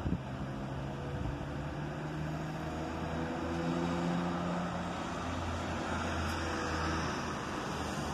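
Road traffic: a steady hum of car engines and tyres, with a low engine drone that grows louder in the middle and then eases off.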